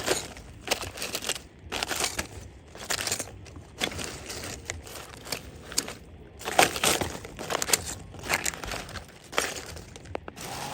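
Dry leaf litter and debris crunching and rustling in irregular bursts, about one to two a second.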